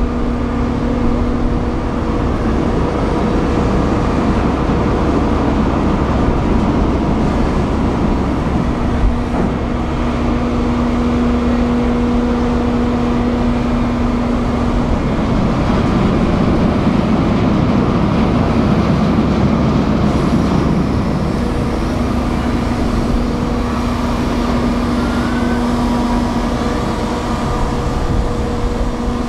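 Large car ferry's engines and machinery running: a steady low rumble with a humming tone that drops out and comes back several times.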